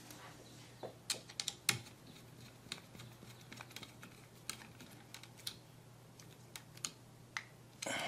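Faint, irregular small clicks and taps of a screwdriver and a bare copper ground wire against a light switch's ground screw as the wire is fastened.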